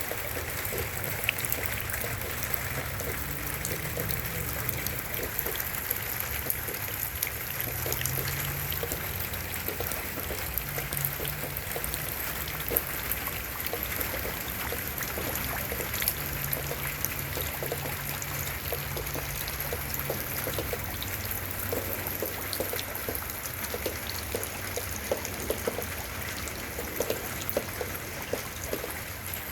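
Rain falling, a steady hiss of water with many small drop ticks scattered through it, along with water trickling.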